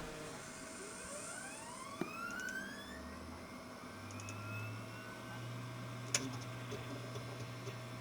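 Old HP Pavilion desktop computer powering on after two years unused: its fans and hard drive spin up with rising whines over the first few seconds, then settle into a steady low hum. A single click comes about six seconds in.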